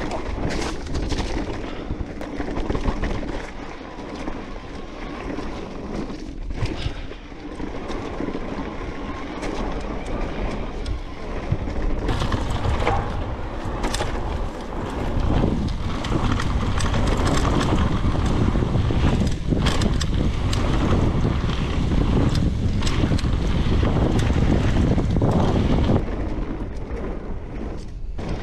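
Mountain bike ridden fast down a dirt forest trail: wind buffeting the microphone over tyre rumble, with frequent short knocks and rattles as the bike goes over roots and bumps. The wind noise grows louder about halfway through and eases a couple of seconds before the end.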